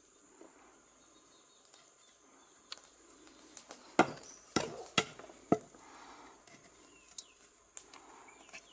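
A green bamboo pole knocked down on concrete four times in quick succession about halfway through, the first knock the loudest, packing down the spiced fish stuffed inside it. Faint insects chirr steadily in the background.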